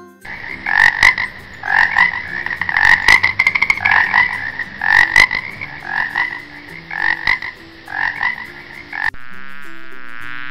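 Frog croaking in short pulsed calls, about one a second, over soft background music. About a second before the end it cuts abruptly to honeybees buzzing.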